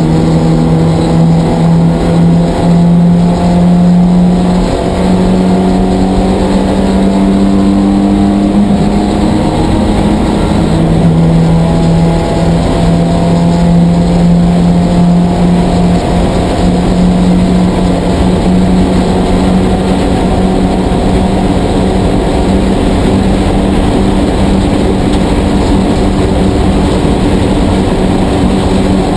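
Porsche 944 Spec race car's 2.5-litre four-cylinder engine, heard from inside the cabin, held at high revs under full throttle. The pitch stays nearly constant, shifting slightly a few times, over a steady rush of wind and road noise.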